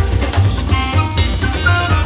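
Upbeat background music with a steady drum beat and bass.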